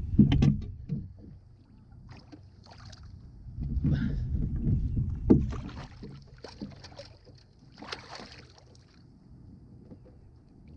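Low rumble of a passing boat's outboard motor at idle, with scattered splashes and knocks as a bass is played and brought into the boat; one sharp knock about five seconds in.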